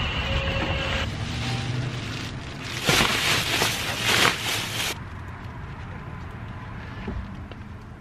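Thin plastic shopping bags rustling and crinkling loudly as they are set onto a car's back seat, for about two seconds before stopping sharply. Before that, wind on the microphone.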